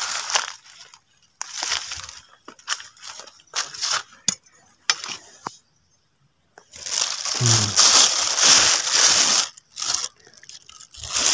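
Thin clear plastic bag crinkling and rustling in handling as freshly picked wild mushrooms go into it. It comes in several short bursts at first, then a loud, continuous crinkle of about three seconds past the middle.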